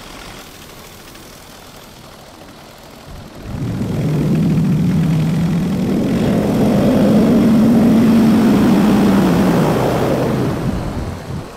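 Paramotor engine and propeller throttled up about three seconds in, the pitch of the engine note rising a little and then holding steady, before being throttled back near the end. Before that only a low steady hiss of the engine at idle and the air.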